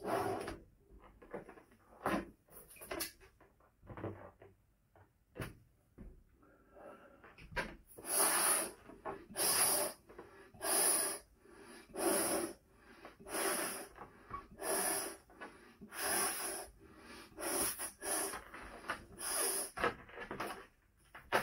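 Breaths blown by mouth into a 14-inch Tuftex latex balloon, with the gasps of breath taken between them. Irregular at first, then a steady run of strong breaths a little more than a second apart.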